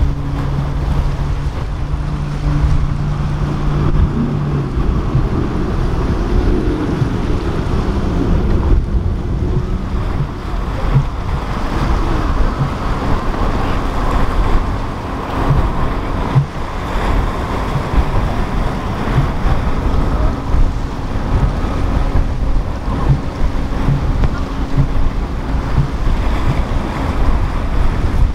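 Wind buffeting the microphone over the rush of waves at the inlet, with boat engines running steadily; one low engine tone stops about four and a half seconds in.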